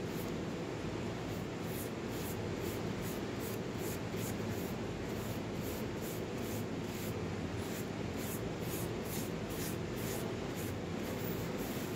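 Wood lathe running steadily while a cloth pad rubs finish into the inside of a spinning plum-wood bowl. The rubbing repeats two to three times a second over the lathe's low hum.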